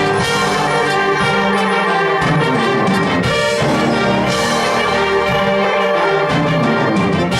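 Youth concert band playing a Christmas piece, brass leading loud, sustained full chords at an even level.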